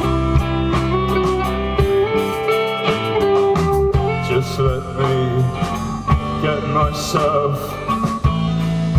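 Live rock band playing an instrumental passage between choruses: guitars over a steady bass with drum and cymbal hits, and a wavering lead line near the middle.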